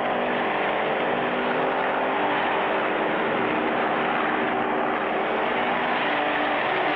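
Steady engine drone from a cartoon sound effect, its pitch shifting slightly a couple of times.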